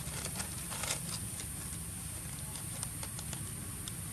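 Dry leaves and litter crackling and ticking in short irregular clicks as a young macaque rummages with its hands and head in a gap between stone blocks. The clicks cluster in the first second, then come scattered.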